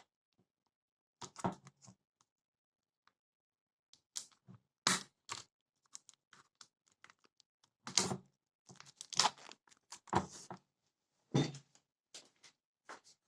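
Packaging being torn open and handled by hand: a run of irregular tearing and crinkling rustles, the loudest about halfway through and again near the end.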